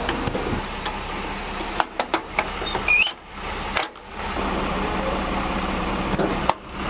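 Truck engine idling steadily, with a few scattered clicks and knocks about two seconds in and again near the end.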